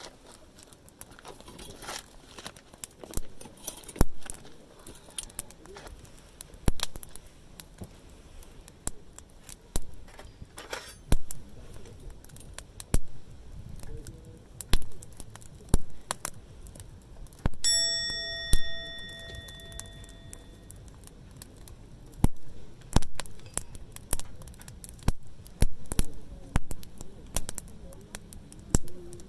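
Wood campfire crackling, with irregular sharp pops and snaps. About midway through, a single metallic ding rings out and fades over a few seconds.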